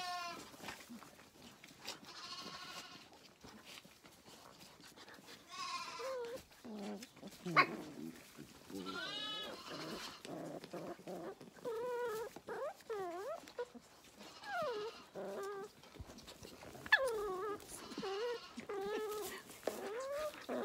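Zwartbles lambs bleating repeatedly at bottle-feeding time, hungry lambs calling for milk. The calls waver in pitch and come a few seconds apart at first, then several lambs call over one another through the second half.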